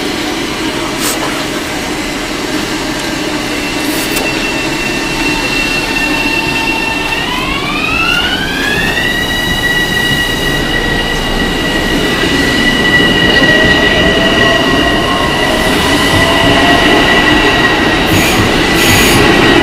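Bombardier M7A electric multiple unit's propulsion whining over rail noise as the train accelerates: its steady tones glide up in pitch together about a third of the way through, then hold steady while the running noise grows.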